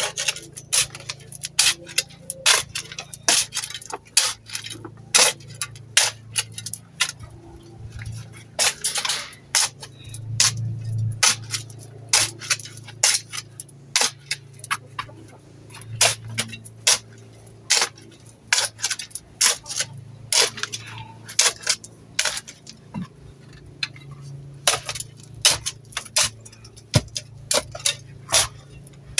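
Metal garden tool digging and turning stony soil: a long, irregular run of sharp clinks and scrapes, one or two a second, over a steady low hum.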